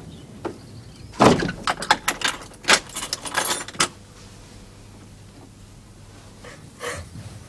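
A bunch of keys jangling and a lock clicking as a door is locked: a quick run of clicks and knocks starting about a second in and lasting under three seconds.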